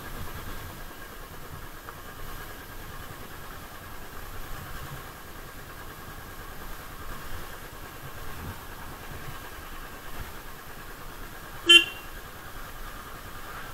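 Motorcycle engine running steadily at low speed, with one short horn beep near the end.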